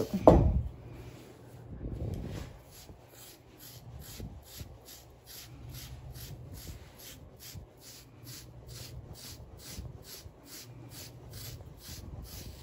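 A carding knife raking through a puppy's thick back coat in short strokes, about three soft raspy scratches a second, pulling out dead undercoat. A brief low thud right at the start.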